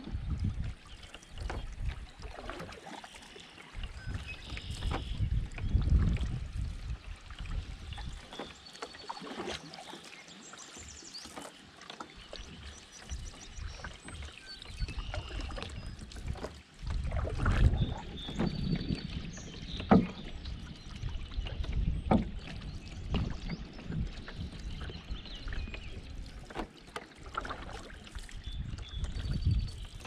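Canoe paddle strokes swishing through calm river water every couple of seconds, with a few sharp knocks partway through. Songbirds sing faintly along the banks.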